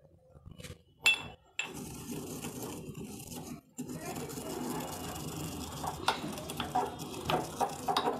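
Pestle crushing dry-roasted cumin seeds in a small metal mortar: a continuous gritty scraping and grinding with quick clinking knocks of pestle on metal. It starts with a single knock about a second in and carries on with a short break near the middle.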